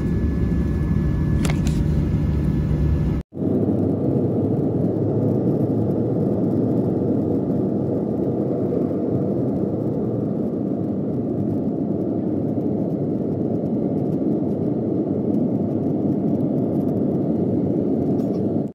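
Jet airliner cabin noise during takeoff and climb-out: a steady hum with a few constant tones for the first three seconds, then, after an abrupt cut, the engines' loud, steady noise, heard through the cabin.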